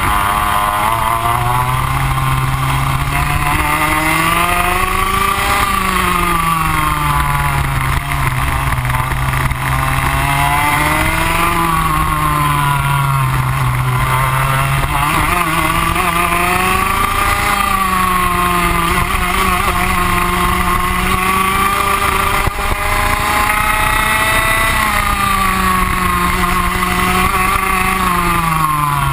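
Rotax Max 125 single-cylinder two-stroke kart engine at racing speed, heard from onboard the kart. Its revs climb and drop again about every six seconds as the kart accelerates along the straights and slows into the corners.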